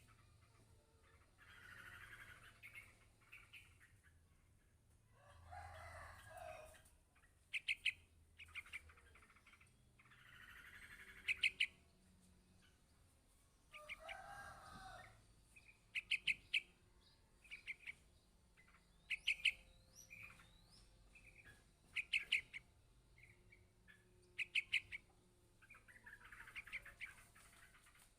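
Yellow-vented bulbul chick calling for its parent: short sharp chirps in quick runs of three to five, repeated every two to three seconds, with softer, rougher sounds between the runs.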